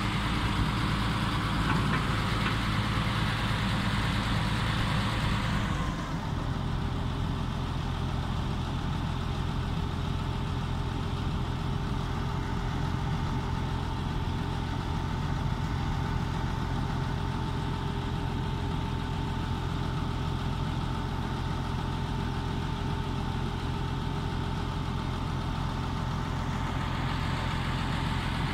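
Komatsu D85E-SS bulldozer's diesel engine running steadily; about six seconds in its note drops and settles lower, and near the end a higher rush comes back into the sound.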